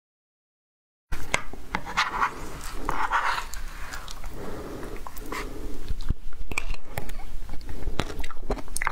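Frozen passion fruit pulp ice being scraped and chipped with a metal spoon, then crunched and chewed in the mouth. It starts about a second in, with many sharp clicks and short crackly bursts.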